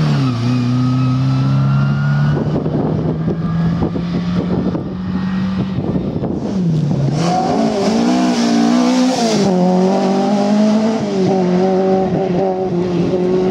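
Rally car engines at hard throttle on a stage. The revs hold steady at first, then rise and fall several times through gear changes and lifts about halfway through, over a crackle of tyres on the loose road surface.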